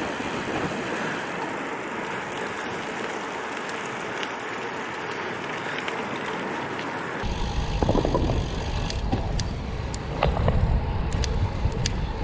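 Gravel bike riding along a trail: steady rolling noise of the tyres on the surface. After about seven seconds the sound changes abruptly to low wind buffeting on the microphone, with a few sharp clicks.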